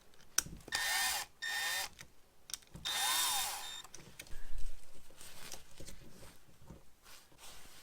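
Power drill running in three short bursts, its motor whining up and dropping away each time. A sharp knock follows, then a few light clicks and handling noises.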